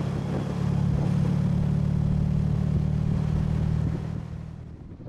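1966 MGB's 1.8-litre four-cylinder engine running at a steady cruising speed, heard from inside the open cockpit with road and wind noise. The sound fades out about four seconds in.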